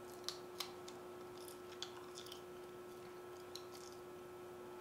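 A person chewing a piece of beef jerky, faintly, with a few short, sharp clicks scattered through it.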